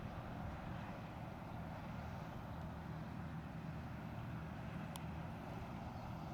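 Fishing boat engine running with a steady low drone. A brief click comes about five seconds in.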